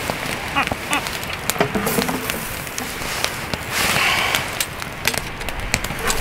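Wood fire crackling, with frequent sharp pops throughout and a short rushing hiss about four seconds in.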